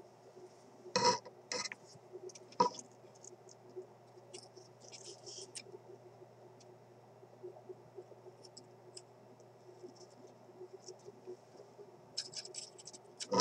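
Soldering iron and solder scratching and tapping at a terminal joint on a vintage radio chassis: faint scattered ticks and light crackles, a few sharper taps about a second in and a cluster of clicks near the end, over a steady low hum.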